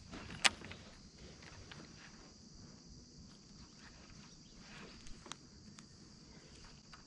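Faint, steady, high-pitched insect chorus, with a few sharp clicks: the loudest about half a second in, two more around five seconds in.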